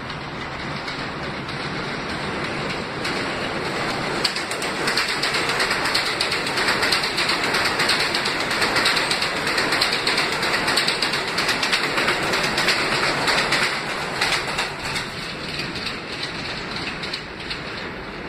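New York City subway train of R160 cars running past on elevated track: wheels clattering and rumbling on the rails. The sound builds over the first few seconds, is loudest for about eight seconds as the cars go by, then fades.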